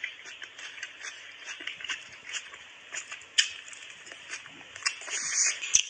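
Close-miked chewing of a green vegetable: irregular small clicks, smacks and crunches from the mouth, with one sharp click near the end.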